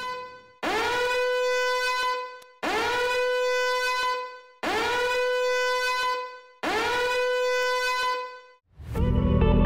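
A horn sounding four long blasts about two seconds apart, each sliding up quickly at its start to one steady note. Music comes in near the end.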